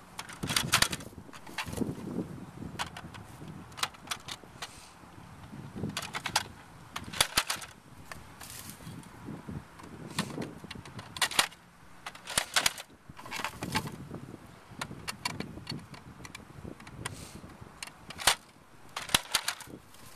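Plastic clicks and clatter from handling the magazines on a Nerf Hail-Fire blaster's rotating clip ring, coming in short clusters several times, over a low rustle of dry grass.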